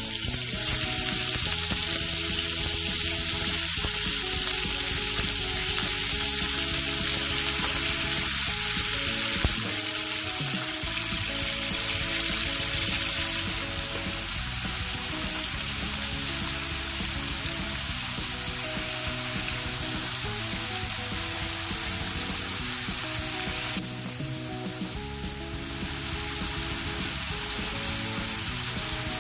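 Marinated pork steak frying in oil in an aluminium wok, with a steady sizzle. Music plays quietly underneath.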